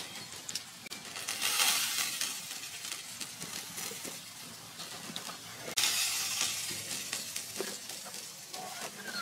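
Chicken and fish sizzling on a charcoal grill, a steady hiss that gets louder about two seconds in and again suddenly near six seconds, with a few faint clicks.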